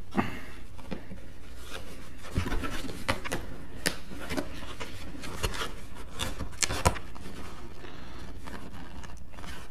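Cardboard boxes being handled and shifted: continuous rubbing and scraping of cardboard against cardboard and cloth, with a few sharp knocks and clicks, the clearest about four and seven seconds in.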